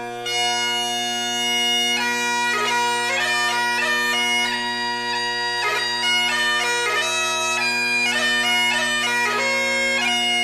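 Bagpipe music: steady drones under a chanter melody with quick grace notes. The melody comes in just after the start and grows fuller about two seconds in.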